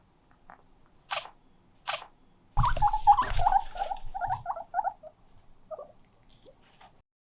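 A guinea pig squeaking: two short sharp sounds, then from about two and a half seconds in a dense run of quick chirping squeaks with bumping and rustling close by, dying away after about five seconds.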